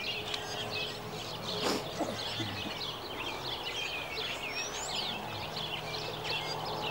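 A busy chorus of many small birds chirping and twittering together, with a single knock about a second and a half in.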